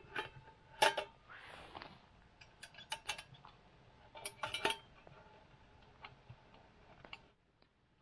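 Metal clinks of a steel camping pot being handled over a campfire: a scattering of sharp clinks with brief ringing, loudest about a second in and again around four and a half seconds in, dying away after about seven seconds.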